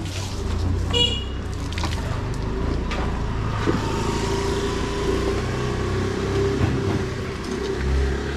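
Street traffic: a vehicle engine running close by over a constant low rumble, with a steady droning tone from about three and a half seconds in. A short high beep comes about a second in.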